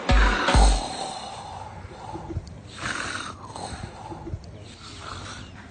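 A man's snoring edited into a song remix: two deep bass hits in the first second, then a run of snoring breaths that gets quieter.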